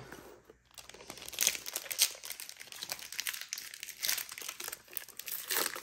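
Foil trading-card pack wrapper crinkling on and off as it is handled and opened by hand, loudest about two seconds in.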